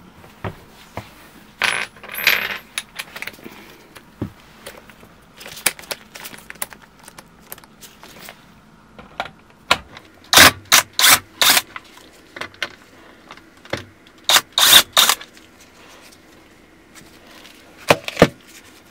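Cordless drill-driver run in several short bursts, backing out the screws of the metal bottom cover of a Segway Ninebot F40 scooter's battery compartment. The bursts come in clusters about ten seconds in and about fifteen seconds in, with a pair near the end.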